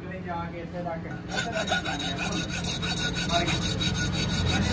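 A flat hand file is drawn back and forth over a metal motorcycle engine crankcase, making a fast run of rasping strokes that starts about a second in.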